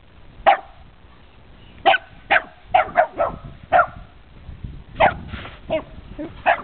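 Dog barking: about a dozen short, sharp barks in uneven bunches.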